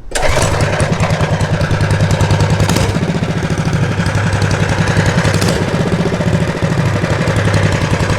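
Predator Ghost 212cc single-cylinder four-stroke engine on a mini bike running at a steady speed, with a fast even pulse. It has no silencer fitted yet.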